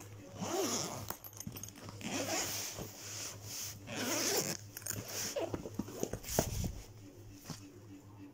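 Zipper on a fabric toiletry bag being pulled in several short runs, with handling and rustling between them.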